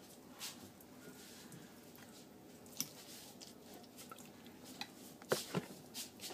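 Faint squishing of a wet egg-and-spaghetti mixture being scraped out of a bowl and spread in a glass baking dish, with a few light clicks, the loudest two about five seconds in.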